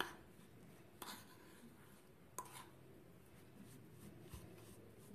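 Faint scratchy scraping of a metal spoon stirring buttery biscuit crumbs in a ceramic bowl, with a few light clinks of the spoon against the bowl in the first few seconds.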